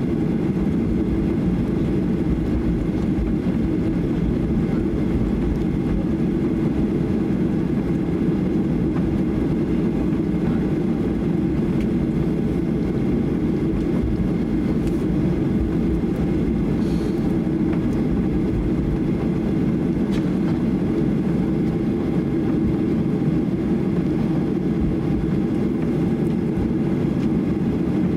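Cabin noise inside a Boeing 737-800 taxiing: a steady low rumble from its CFM56-7B engines at taxi power, heard through the cabin wall.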